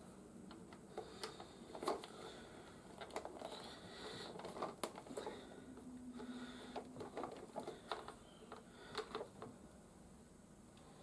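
Hard plastic toy-vehicle parts being handled and fitted together: irregular light clicks, taps and knocks, with a brief low hum near the middle.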